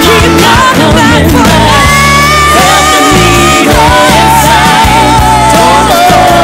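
Alternative rock band playing, with a lead vocalist singing long, drawn-out notes over the full band.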